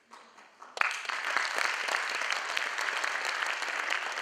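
Audience applauding, the clapping breaking out suddenly just under a second in and carrying on steadily.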